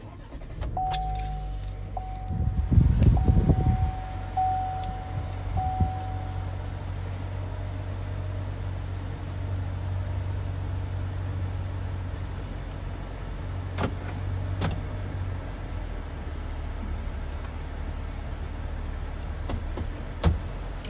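A Chevrolet Silverado's 2.7-litre turbocharged four-cylinder engine, heard from inside the cab, starts about two seconds in and then idles steadily. A dashboard chime repeats over the first few seconds, and a couple of clicks come later on.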